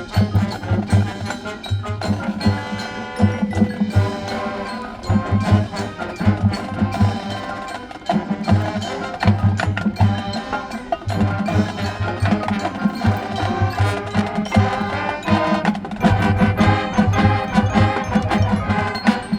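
High school marching band playing live, in a passage led by the percussion: rapid, driving drum strokes under the front ensemble's mallet instruments and sustained pitched notes.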